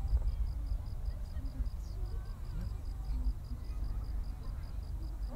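Lull between fireworks: faint chatter of spectators over a low rumble, with an insect chirping in an even rhythm of about five pulses a second.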